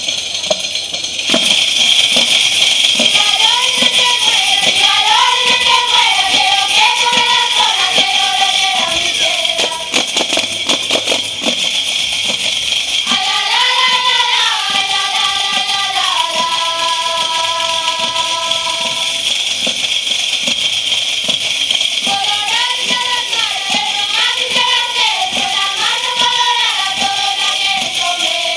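Galician muiñeira played on pandeiretas, jingled frame drums shaken and struck in a steady driving rhythm, with a group of women singing the melody in three phrases separated by short stretches of drumming alone.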